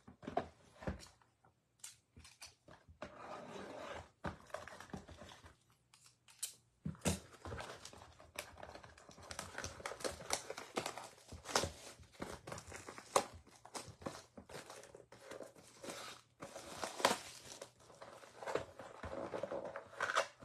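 Plastic shrink wrap being torn off a 2022 Score football trading-card box and crumpled: irregular crinkling and tearing with sharp crackles, then the box being opened.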